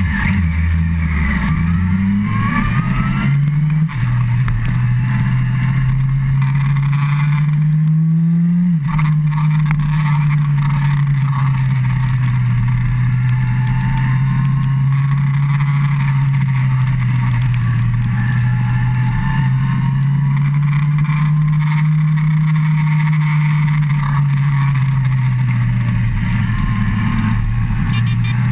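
Yamaha FZ1's inline-four engine accelerating. Its note climbs and drops sharply at an upshift about four seconds in and again near nine seconds, then holds a steady cruise with slow small rises and falls, over a constant rush of wind.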